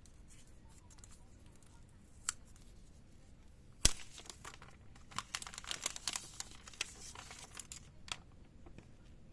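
Protective plastic film being peeled off a new smartphone: a sharp click about four seconds in, then a few seconds of crinkling and tearing plastic.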